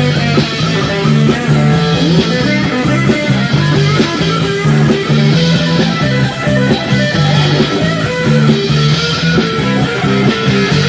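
Rock band playing a passage with guitar, bass guitar and drums, the bass repeating a low figure under regular cymbal crashes.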